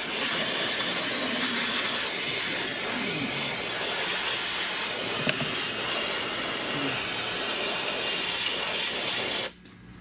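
Aerosol can of brake parts cleaner spraying in one long steady hiss onto the air-conditioning line fittings to wash off dirt before they are taken apart; the spray stops abruptly near the end.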